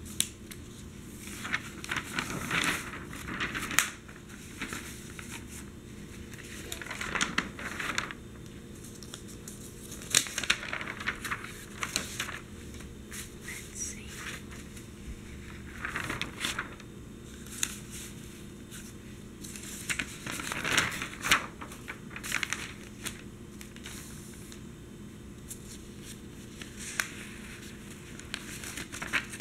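Newspaper pages rustling and crinkling in bursts every few seconds as they are handled and turned, with occasional short sharp taps in between.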